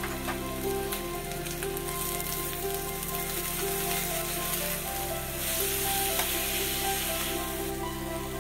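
Onion and capsicum sizzling in hot oil as they are stir-fried over a high gas flame in a kadai, with a metal spatula clicking against the pan. The sizzle grows louder about halfway through.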